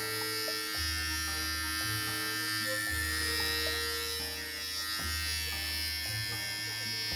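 Electric pet clippers running with a steady buzz as they shave the body coat of a Maltese.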